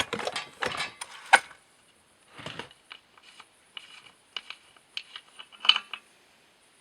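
Scattered clicks, knocks and light rattles of an old Homelite Zip chainsaw's metal and plastic parts being handled and worked by hand. The sharpest click comes about a second and a half in, with another burst of clicks near the end.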